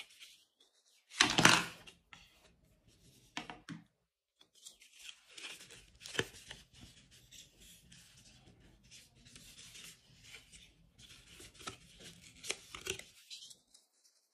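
Cardboard packaging insert handled by gloved hands. About a second in comes a loud, brief tearing rasp of card. Then, after a pause, there is steady scraping and rustling of card with small sharp clicks as it is bent and folded.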